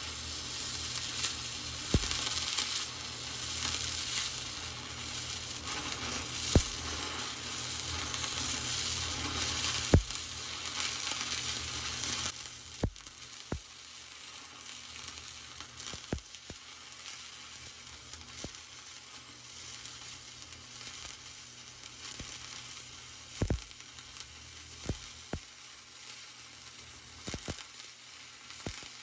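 Flux core welding arc crackling and sizzling steadily while a vertical-up 3G pass is run on thick steel plate. The crackle cuts off sharply about twelve seconds in, leaving a quieter background with scattered sharp clicks.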